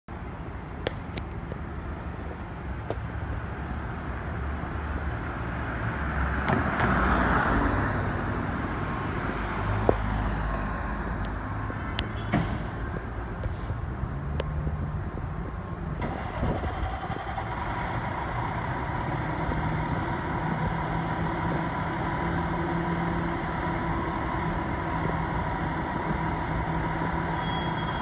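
Fire truck's diesel engine idling in its bay, a steady low hum with a few sharp knocks. A rush of noise swells and fades about a quarter of the way in, and a steadier, higher hum joins it a little past halfway.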